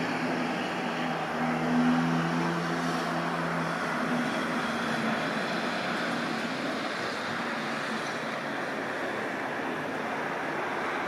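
Steady outdoor rumble of city traffic mixed with a departing jet airliner's engines heard from a distance. A low hum fades out over the first few seconds.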